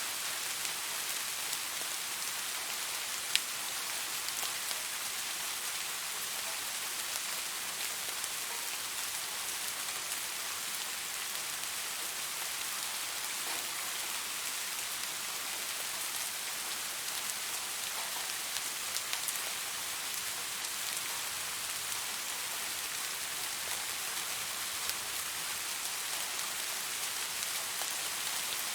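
Steady rain falling: a dense, even hiss of many drops, with one sharp, louder drop tick about three seconds in.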